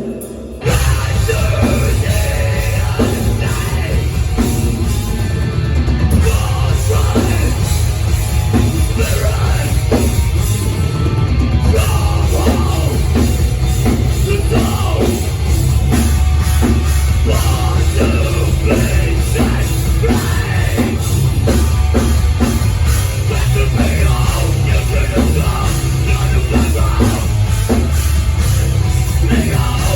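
Metal band playing live at full volume: distorted guitars, bass and pounding drums. The whole band comes crashing back in under a second in after a brief drop.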